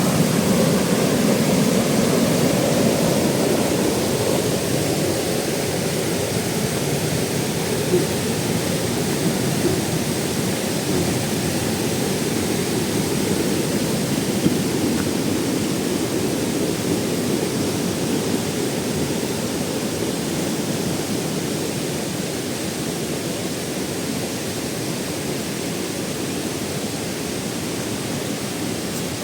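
Steady rush of water pouring down a tiered waterfall, easing slightly in loudness over the stretch.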